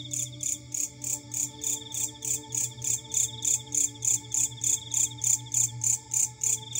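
Insects chirping in an even rhythm, about four or five pulses a second, with a second insect trilling continuously at a lower pitch that drops out for a moment near the end, over a faint steady low hum.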